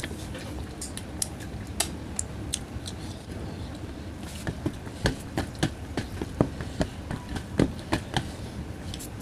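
Eating by hand: wet chewing clicks, then fingers mixing rice and curry on a steel plate. A busy run of sharp, wet clicks and smacks starts about four seconds in.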